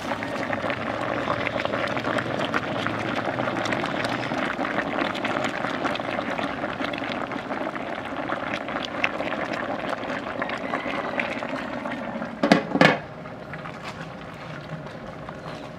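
Plantain and cassava boiling in a large aluminium pot: steady bubbling. About twelve seconds in, a loud double clank of the metal lid being set on the pot, after which the bubbling is quieter.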